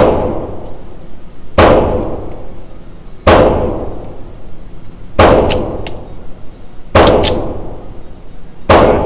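Gunshots from 9 mm pistols on an indoor range: six shots at an even pace, about one every 1.7 seconds. Each ends in a long echoing ring off the range walls.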